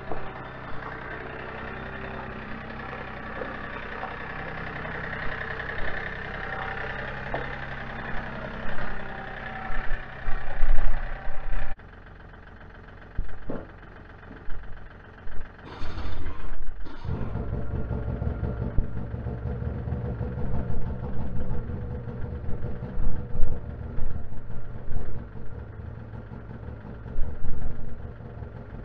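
Compact tractor engine running steadily while towing a trailer. About twelve seconds in the sound cuts, and from about seventeen seconds an Arctic Cat Sabercat snowmobile engine idles, with uneven swells in loudness.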